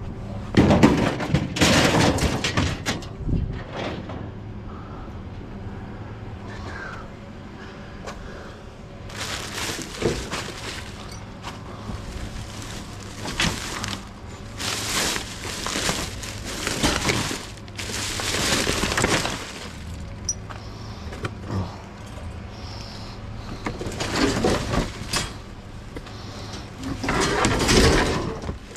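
Rummaging through a dumpster: trash bags rustling, with cardboard and a metal wire rack scraping and clattering in irregular bursts, over a steady low hum.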